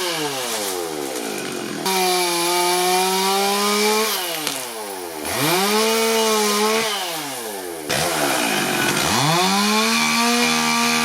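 Two-stroke chainsaw cutting into a dead olive tree. It is held at high revs, drops back about three times and revs up again.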